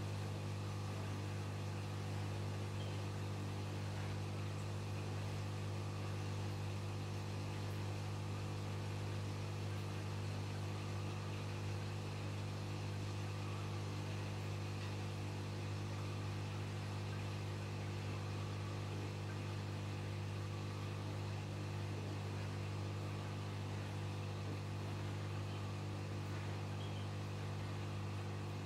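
Aquarium pump humming steadily, a low electric hum over a faint even hiss.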